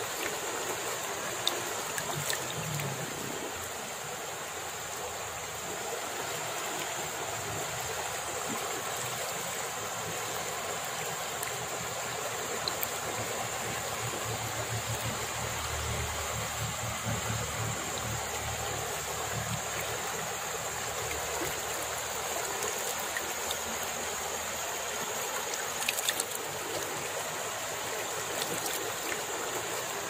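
Shallow river flowing over rocks: a steady rushing and babbling of water, with a few brief clicks.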